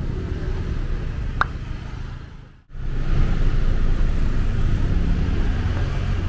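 Street traffic noise: cars passing, with a steady low rumble. A short high squeak comes about a second and a half in. The sound drops out for a moment a little past halfway, then resumes.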